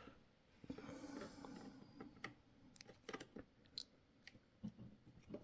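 Faint, irregular small clicks and taps of a screwdriver working a tight adjustment screw in a radio-control transmitter's stick gimbal.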